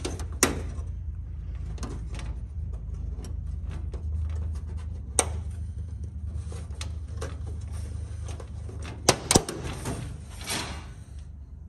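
Scattered clicks and light knocks of hands and small metal parts working a static port and its strap against thin aluminium fuselage skin, a pair of sharper knocks about nine seconds in, over a steady low hum.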